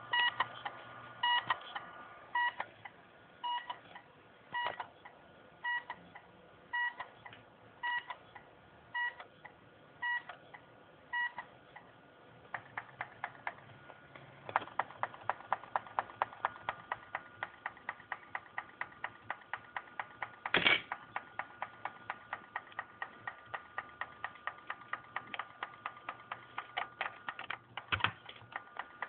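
Failing internal hard drive of a LaCie LaCinema Classic. For the first part it gives short beeps about once a second, then switches to rapid repeated clicking, a few clicks a second, over a faint steady whine, with two louder clicks later on. The owner takes the beeping and clicking for a fault in the drive's read/write heads.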